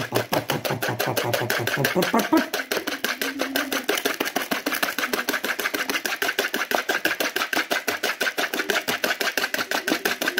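Hand wire whisk beating eggs and sugar in a mixing bowl, its wires clicking against the bowl in a fast, steady rhythm of about seven strokes a second. The mixture is being whisked until foamy.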